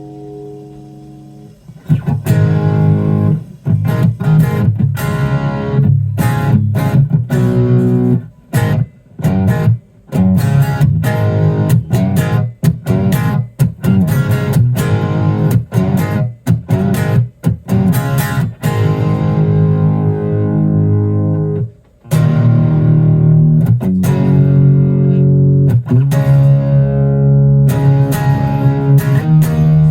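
Electric guitar playing loud riffs with many short stops, after a couple of seconds of quiet held notes.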